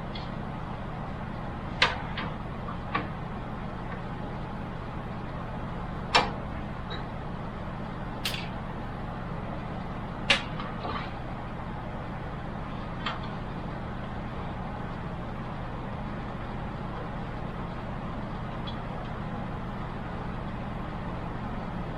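Scattered sharp clicks and light knocks of computer hardware being handled and fitted into a PC case, about eight in all over the first half, over a steady low hum.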